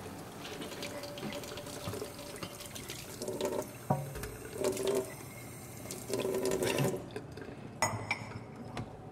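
Tap water running into a sink while a white ceramic cup is rinsed by hand, with a couple of sharp knocks of crockery. The flow thins out about seven seconds in.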